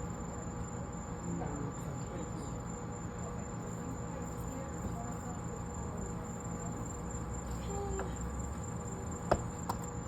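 Crickets trilling steadily in the background, with two sharp knocks close together near the end.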